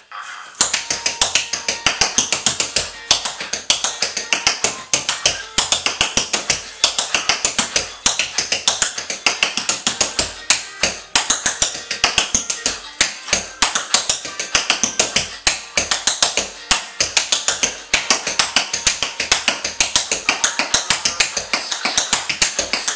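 Tap shoes' metal taps striking the floor in fast, rhythmic tap-dance steps, several sharp strikes a second in changing patterns, starting about half a second in.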